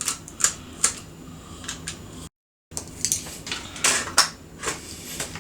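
Scattered light clicks and taps of a Phillips screwdriver working the small screws out of a speedometer gauge in a plastic instrument cluster. The sound cuts out completely for a moment about halfway through.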